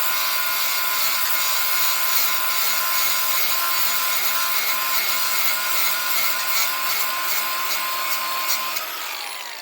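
Angle grinder with an aluminum oxide flap disc grinding rust and weld beads off a metal plate under light pressure: a steady high whine with a grinding hiss. Near the end it is lifted off and let go, and the pitch falls as the disc spins down.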